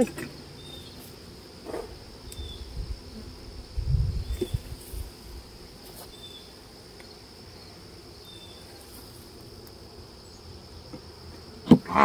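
Insects droning steadily in the vegetation: a continuous high tone with a faint short chirp every second or two. There is a brief low rumble about four seconds in.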